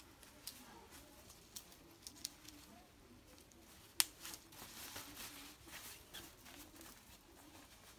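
Faint rustling of nylon fabric and small clicks of a strap being fastened around a sled's metal handle, with one sharp click about four seconds in as a clip snaps shut.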